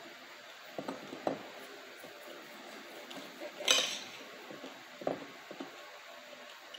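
Fork and knife scraping and clinking against an amber glass plate while cutting food: a handful of short, separate scrapes, the loudest a little past halfway through.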